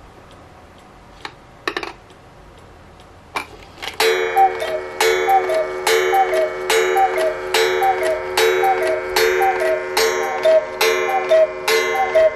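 A few light clicks as the clock's hand is turned by hand, then the cuckoo clock's bellows-and-pipe cuckoo call starts about four seconds in: a falling two-note "cu-ckoo" repeated about a dozen times, less than a second apart.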